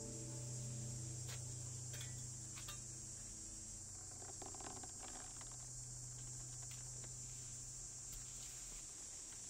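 Quiet soundtrack ambience: a low steady hum under a steady high-pitched hiss, with a few faint ticks and a soft rustle about halfway through.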